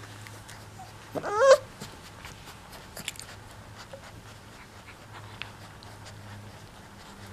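Four-week-old mastiff puppy giving one short whine about a second in, rising and wavering in pitch, over faint scrabbling clicks and a steady low hum.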